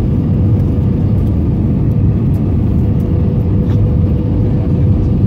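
Airbus A320 cabin noise on approach, heard from a window seat over the wing: the steady low roar of the engines and rushing air, with a steady mid-pitched hum.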